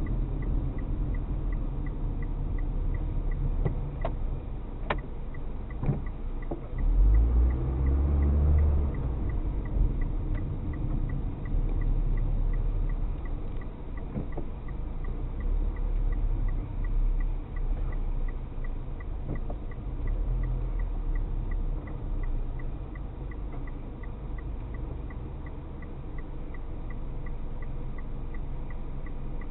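Low road and engine rumble inside a moving car, swelling about seven seconds in. A faint, steady tick repeats about twice a second throughout.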